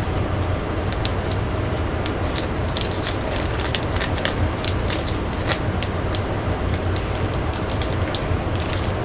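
Blu-ray cases and packaging being handled: scattered small clicks and crinkles over a steady low hum.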